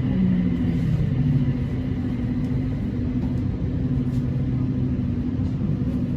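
BTS Skytrain electric train running: a steady rumble with a low motor hum whose pitch falls during the first second or so, then holds steady.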